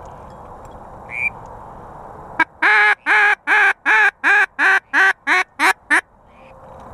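Mallard hen-style quacking, most likely from a hunter's duck call: a loud descending run of about ten quacks that get shorter and quicker toward the end. A short high squeak comes about a second in.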